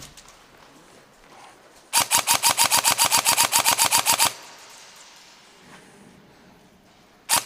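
Airsoft electric rifle, a Systema PTW M4, firing full-auto: a burst of about two seconds starting about two seconds in, at roughly a dozen shots a second, and a second burst starting near the end.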